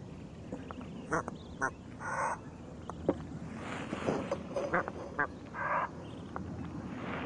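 Egyptian geese calling close by: a string of short calls, coming about every half second, over a steady low background wash.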